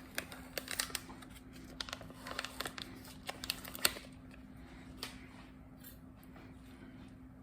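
Short clicks, snips and crinkles of a plastic microwave rice package being opened and handled, busiest in the first four seconds and sparse after, over a steady low hum.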